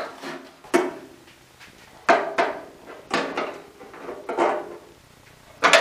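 Masking tape being peeled off a freshly painted steel fuel tank by hand, in several short tearing rips a second or so apart.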